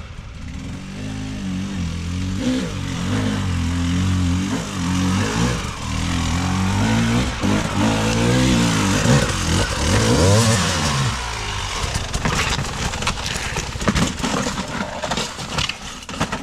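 Enduro motorcycle engine revving up and down repeatedly under load, with a run of sharp knocks and clatter in the last few seconds.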